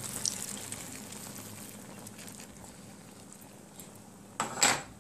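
Coconut milk being poured into a pot of frying curry prawns: the sizzling gets quieter as the liquid covers the food. A short, loud burst of noise follows near the end.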